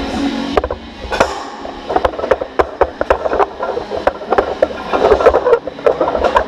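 Sorinex Root Hog push-pull sled being driven across gym turf, heard from a camera mounted on the sled: a continuous scraping with a dense, irregular clatter of knocks and rattles.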